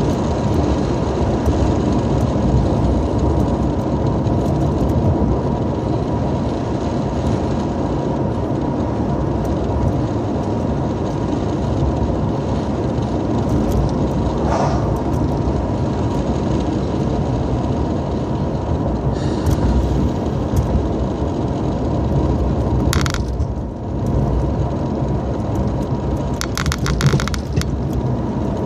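Road and engine noise heard inside a moving car's cabin, a steady low rumble, with a few short rattles near the end.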